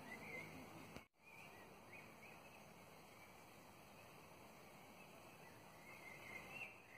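Faint outdoor ambience with small birds chirping now and then. The sound cuts out completely for an instant about a second in.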